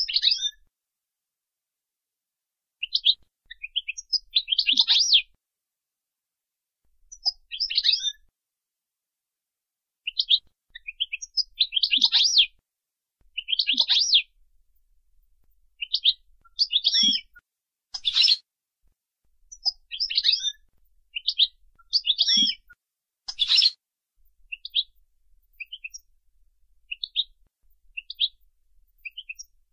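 European goldfinch singing, in the Moroccan 'jnanat Boujaad' song style. Quick, high twittering phrases a second or two long alternate with silent gaps, with two harsher notes in the middle. Shorter, scattered notes come near the end.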